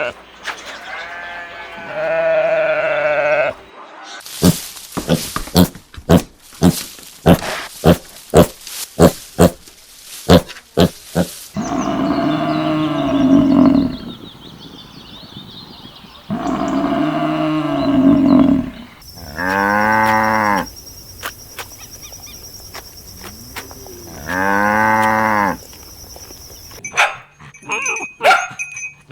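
A string of farm-animal calls: a bleating call at the start, then a quick run of sharp clicks or snorts, then four long, loud calls of about two seconds each.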